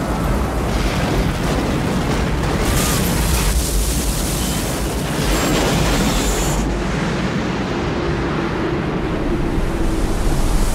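Disaster-movie sound effects of destruction: a dense, continuous rumble with a heavy low end.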